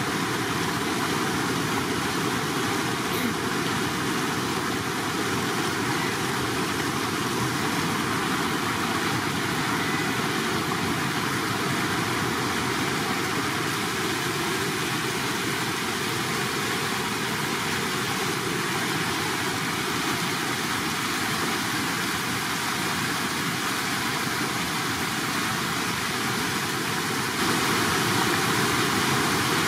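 Shallow water rushing steadily over a concrete spillway, a constant rushing noise that gets a little louder near the end.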